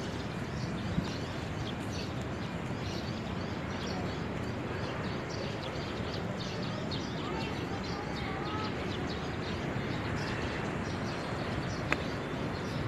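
Outdoor ambience: a steady background rumble with birds chirping and whistling over it.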